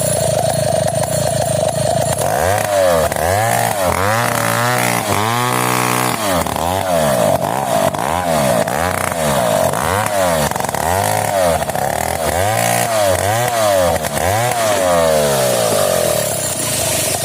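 Stihl 070 two-stroke chainsaw running, at first at a steady speed. About two seconds in it starts revving up and down roughly once a second, over and over, until near the end.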